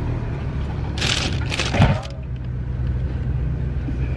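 Groceries being set down in a car's cargo area: a crackling, clattering burst of boxes and bags going in about a second in, over a steady low hum.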